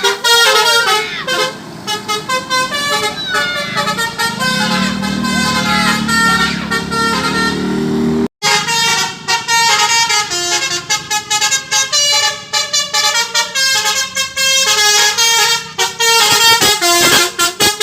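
Telolet basuri multi-tone bus horn playing a melody as a run of stepped horn notes. It cuts out for a moment a little past eight seconds in, then another run of notes follows.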